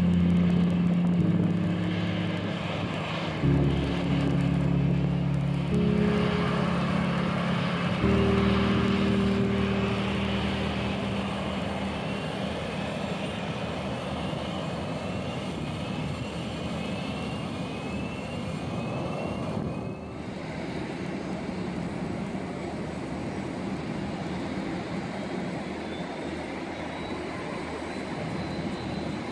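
Airliner engines running, a steady roar with a rising whine, under background music of held low chords that fades out about twelve seconds in. The engine sound changes abruptly about twenty seconds in, ending with a steady high whine.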